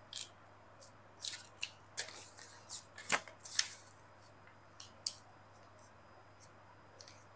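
Light rustling and soft ticks of a paper pattern and sheer tulle net being handled and pinned on a cutting mat, in scattered short bursts over the first five seconds, the loudest about three seconds in.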